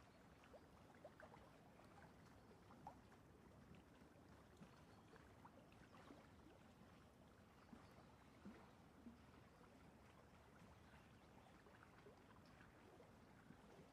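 Near silence: faint scratching of a paintbrush drawn across a stretched canvas in acrylic paint, with scattered soft ticks.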